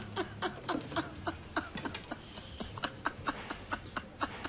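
Laughter in short, rhythmic bursts, about three or four a second, quieter than just before.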